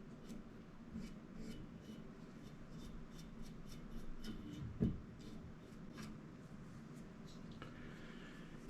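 Faint small clicks and light rubbing from hands handling tools and metal fittings, with one dull low thump about five seconds in.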